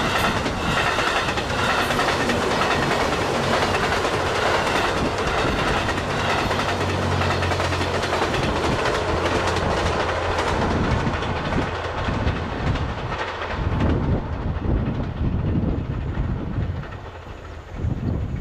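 The JR West 87 series "Twilight Express Mizukaze" diesel-electric train passing at close range. Its engine hum and the clack of wheels over rail joints run steadily, then fade away over the last few seconds.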